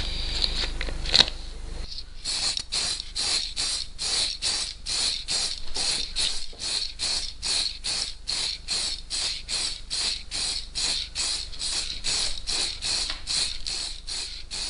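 An aerosol spray-paint can shaken hard, its mixing ball rattling inside in a steady rhythm of about three strokes a second, readying the dark blue paint for spraying. A short hiss of spray comes just before the shaking starts.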